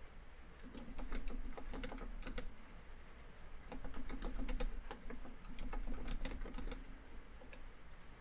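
Typing on a laptop keyboard: quick runs of keystrokes in bursts, with short pauses between them.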